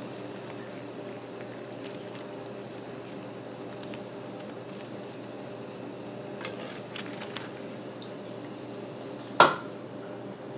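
Hot cooking oil at about 360°F bubbling and sizzling steadily around bread rolls deep frying in a cast-iron pot, with a few faint clicks from the wire skimmer working in the pot. One sharp knock near the end, the loudest sound, as the rolls are lifted out.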